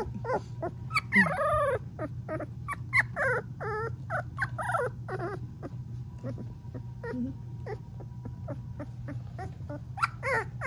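Three-week-old golden retriever puppy trilling: a string of short, warbling high-pitched calls, close together at first, sparser in the middle, then coming thick again near the end.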